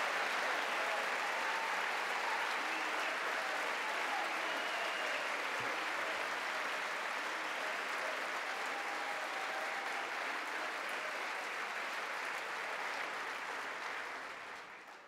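Sustained applause from a large crowd of House members, dying away near the end.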